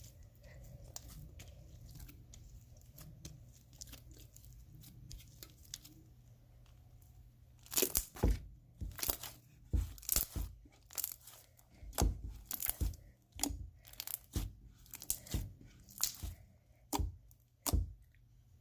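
Slime being squished and pulled by hand: faint small clicks at first, then from about eight seconds in a run of loud, sharp crackles and pops every half second to a second.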